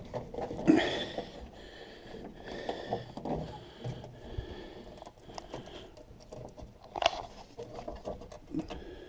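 Small plastic clicks and scrapes with handling noise as wiring-loom connectors inside a van door are worked at by hand, with a few sharper clicks, one about a second in and one near the end.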